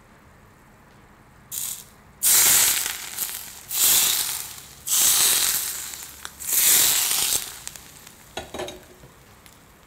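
Hot vegetable oil poured from a ladle over shredded scallion, ginger and chilli on steamed egg tofu, sizzling: a short first splash, then four loud bursts of sizzle that each fade away, with a few small clicks near the end.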